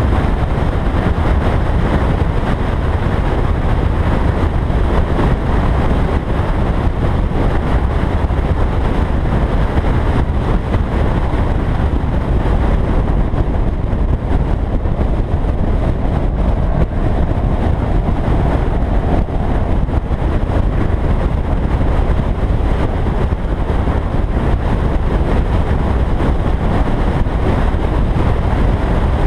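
A car driving steadily at cruising speed on an open road: a continuous rumble of wind and road noise, strongest in the low end, as heard from a camera mounted outside on the car.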